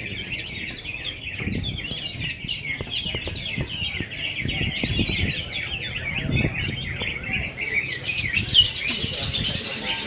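Many caged songbirds singing at once, a dense, unbroken chorus of chirps and trills that grows louder and busier near the end, over a low crowd murmur.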